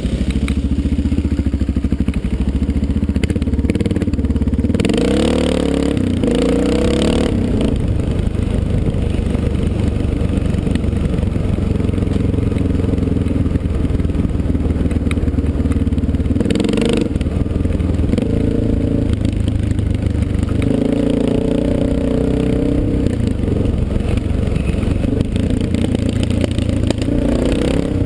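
Dirt bike engine running while riding a gravel forest road, its pitch shifting several times as the throttle changes, with clatter from the rough surface.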